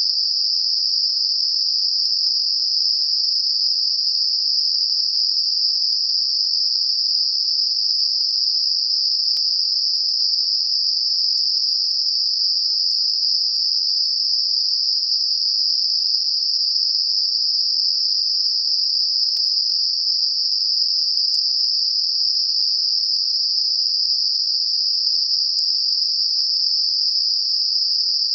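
Computer-generated Gaussian narrow-band noise centred on 5 kHz: a steady, even, high-pitched hiss with nothing lower underneath, used as a masker for high-frequency tinnitus.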